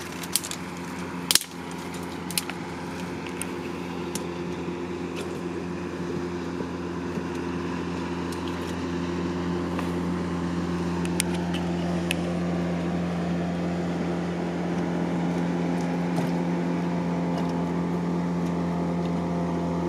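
A steady engine hum at a constant pitch, slowly growing louder, with a few sharp cracks or clicks in the first couple of seconds as a hand digs into a mud crab burrow among mangrove twigs.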